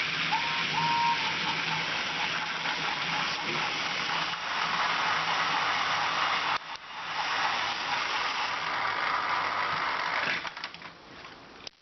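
Battery-powered Trackmaster toy train motors whirring with a steady hum as the engines run along plastic track, wheels and couplings rattling over the rails. Two short high beeps sound about half a second in; the noise dips briefly a little past halfway and dies down near the end.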